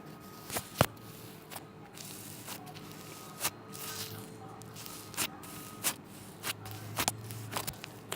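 Slime being squeezed and stretched by hand, giving a string of short sticky clicks and pops, about a dozen scattered irregularly over several seconds.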